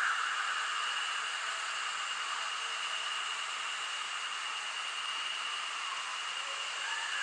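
Steady hiss with a constant high-pitched whine running through it; near the end a faint wavering warble comes in. No roar or other deep sound.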